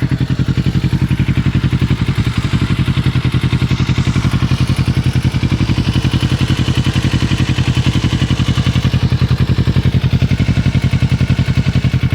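2006 Kawasaki Ninja 650R's parallel-twin engine idling steadily, with a regular ticking running through the engine note. The owner is unsure whether the tick is normal or a fault worth fixing.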